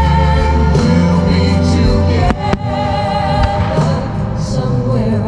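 Music with choir-like singing, the soundtrack of a fireworks pyromusical, with a few sharp firework reports, two close together about two and a half seconds in.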